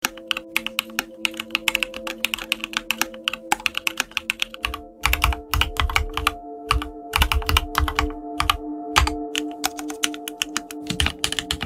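Computer-keyboard typing sound effect, rapid irregular key clicks, over background music of sustained chords; about halfway the chords change and a deep pulsing bass comes in.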